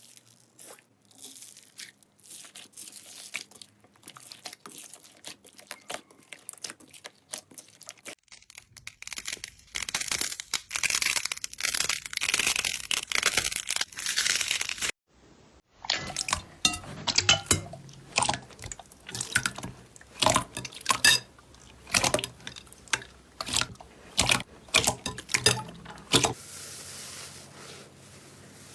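Hands squishing and poking slime, making a run of sticky clicks and pops. In the middle there is a stretch of dense crackling, followed by louder, separate pops.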